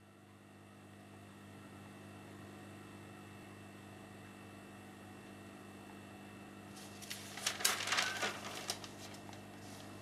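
Steady low indoor room hum with a few faint steady tones. About seven seconds in, a cluster of sharp clicks and rustles lasts about two seconds.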